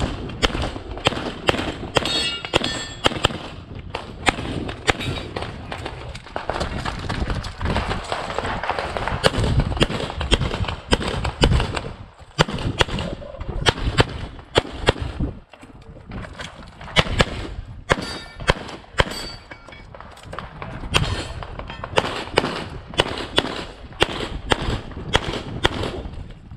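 Grayguns-tuned Sig Sauer P320 X5 Legion 9mm pistol firing quick strings of shots through a timed practical-shooting stage, the strings broken by brief pauses.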